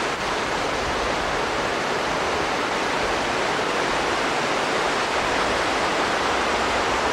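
River water rushing steadily over a gravel bed, a constant even noise of running water.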